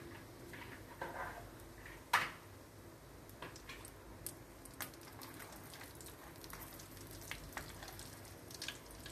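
Raw skin-on peanuts deep-frying in hot oil in a wire mesh strainer: a steady sizzle with scattered sharp crackles, the loudest about two seconds in.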